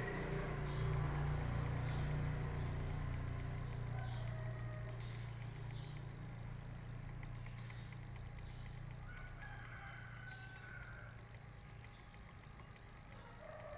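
A low, steady mechanical hum that slowly grows fainter, with short faint high chirps scattered through it.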